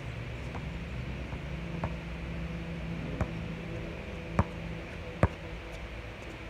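A basketball knocks against an outdoor court and hoop in about six separate impacts, the two loudest in the second half, over a steady low hum.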